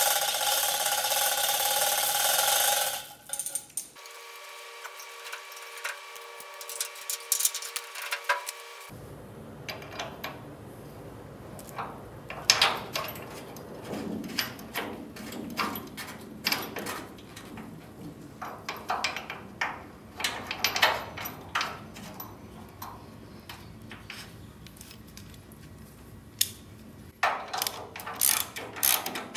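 Steel chain-hoist chain rattling, with metal clinks and clunks, as a VW transmission is guided onto the chassis. Near the end a hand ratchet starts clicking as the mount bolts are run in. The first few seconds hold a louder steady mechanical noise.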